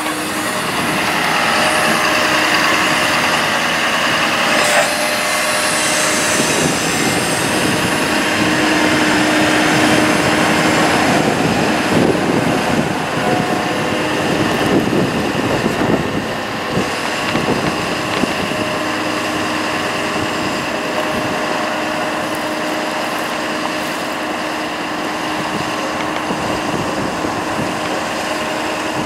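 Engine and PTO-driven hydraulic system of a 2014 Ford F-550 ETI ETC40IH bucket truck running while the aerial boom is operated: a steady mechanical hum with a held whine.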